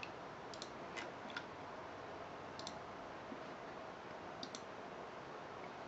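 A few faint, sparse computer mouse clicks, one a quick double click, over a low steady hiss.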